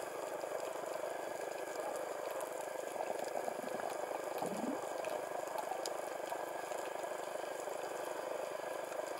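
Underwater ambience heard through a camera housing: a steady watery hiss, with one short rising tone about four and a half seconds in.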